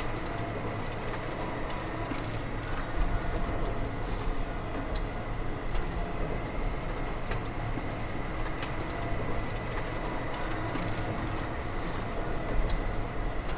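Factory machinery running: a steady low rumble with a thin, steady high whine and scattered sharp clicks and knocks.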